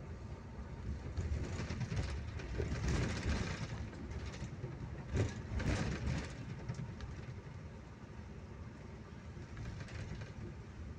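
Passenger bus driving on a highway, heard from inside the cabin: a steady low engine and road rumble, with bursts of rattling and clatter about one to four seconds in and again around five to six seconds, easing off after that.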